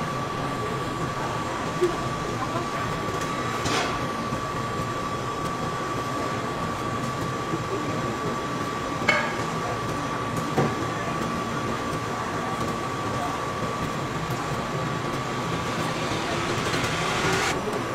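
Steady mechanical background hum with a constant high-pitched whine, broken by a few separate sharp taps.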